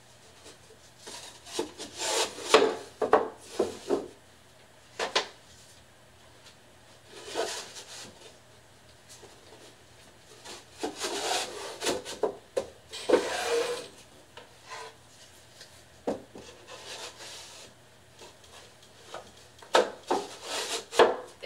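Thin slotted boards of a divider insert sliding into each other's slots, scraping and rubbing in irregular bursts, with a few sharp knocks as the boards are pushed together.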